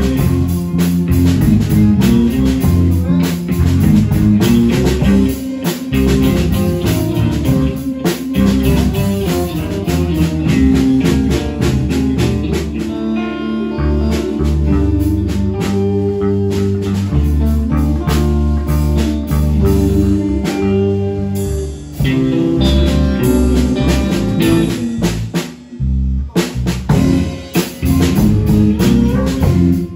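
Live band playing a song: drum kit with guitar and bass guitar. There is a brief break in the playing a few seconds before the end.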